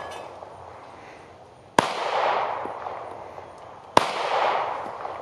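Two 9mm pistol shots from a ported Smith & Wesson Performance Center M&P Shield, about two seconds apart. Each sharp crack trails off in a long echo.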